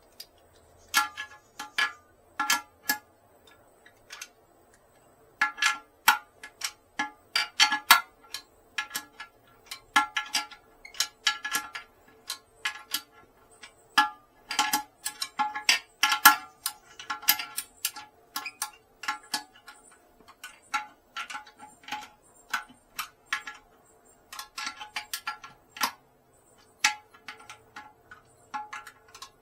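Ratchet wrench clicking in short irregular runs with a light metallic ring as it tightens the toilet tank bolts a little at a time.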